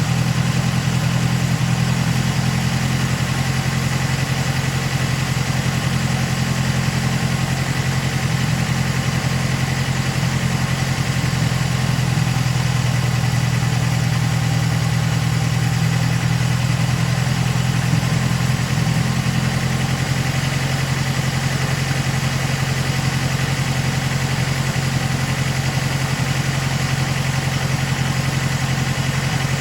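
Datsun 510 Bluebird's L16 four-cylinder engine on twin Solex carburettors idling steadily, a low, even engine note with no change in speed.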